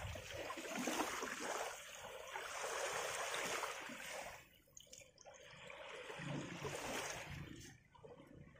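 Small waves washing up over the sand at the shoreline and drawing back, a hiss that swells and fades with two brief lulls.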